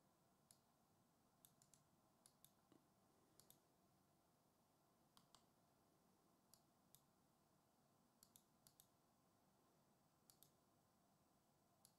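Near silence broken by faint, scattered computer mouse clicks, many in quick pairs like double-clicks.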